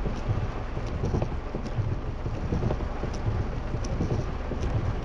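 Rain falling on a car's roof and windscreen, heard from inside the moving car, over a steady low rumble with irregular low thumps underneath.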